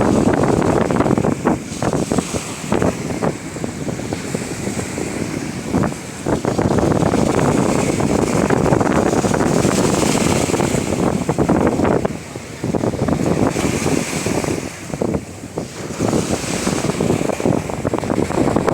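Strong wind buffeting the microphone over the wash of sea waves at the shore: a loud, rough rushing that swells and dips, with a couple of short lulls in the second half.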